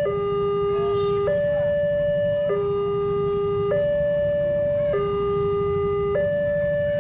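Railway level-crossing warning alarm sounding a steady two-tone alternation, a low and a high electronic tone switching about every second and a quarter, the signal that a train is approaching the crossing.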